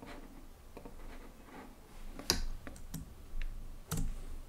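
A handful of separate sharp clicks from a computer mouse and keyboard being worked, the loudest about two and four seconds in.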